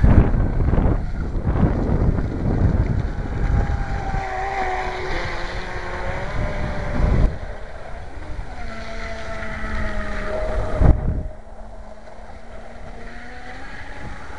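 Brushless electric motor of a fast RC speedboat whining as the boat runs across the water, its pitch sliding down and up as it passes and changes throttle. Wind buffets the microphone near the start and in two short gusts later on.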